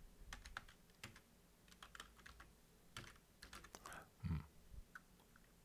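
Typing on a computer keyboard: faint, irregular keystroke clicks, with one heavier low thump a little past four seconds in.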